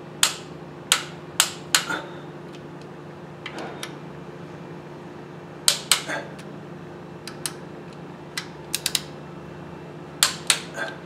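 Sharp metallic clicks and clanks at irregular intervals, some in quick pairs, from a socket wrench and extension being fitted and worked on the oil pump's mounting bolts. A steady low hum runs under them.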